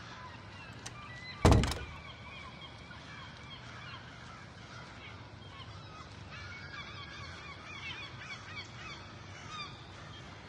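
Birds calling over and over, many short overlapping calls, with a single loud thump about a second and a half in.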